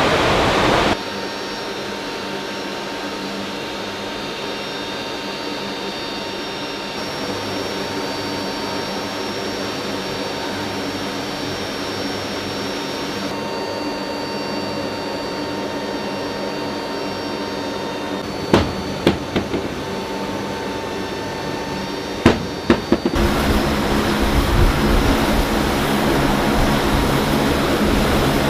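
Turboprop engines of a C-130-type transport running steadily, a muffled hum with a high whine as heard from inside the cargo hold. A few sharp knocks come about two-thirds of the way in, and near the end the propeller and engine noise grows louder and fuller, heard out on the apron beside the spinning propellers.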